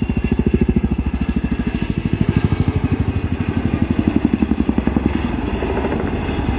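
Boeing Chinook HC6 tandem-rotor helicopter passing at high speed in a hard turn, its rotors giving out loud blade slap: rapid, evenly spaced pulses, hardest in the first second and again around the middle, smoothing out toward the end.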